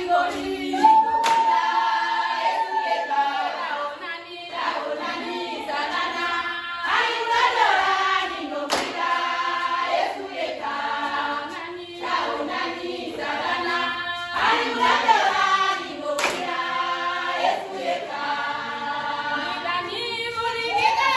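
A group of women singing a joyful praise song unaccompanied, with hand clapping.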